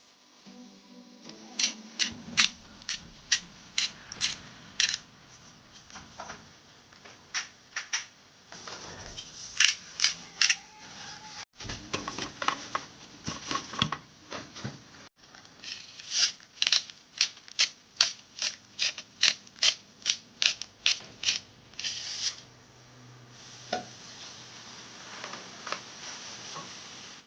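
A kitchen knife chopping on a cutting board in several runs of sharp, regular strokes, about two to three a second, with short pauses between the runs.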